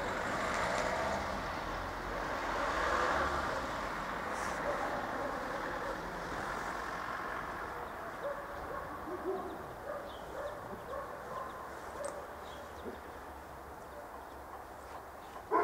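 Passing vehicle noise that swells and then slowly fades over the first several seconds. After that a dog barks faintly and repeatedly, with one louder bark at the very end.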